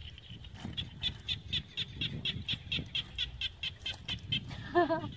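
A high, evenly repeated chirping, about four chirps a second, from a small calling animal, stopping shortly before the end, over low, irregular splashing and squelching of wet mud. Near the end comes a short vocal exclamation, the loudest sound.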